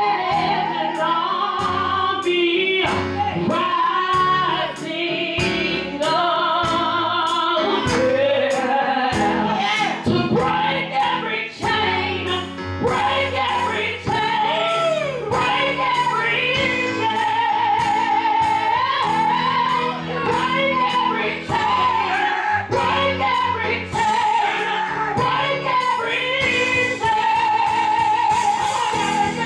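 Live gospel worship music: a band playing with a steady beat under a lead singer holding long notes with vibrato.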